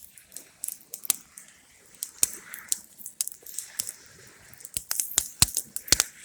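A Sunbeam box fan burning in a fire, crackling and popping irregularly, with a few louder sharp pops near the end.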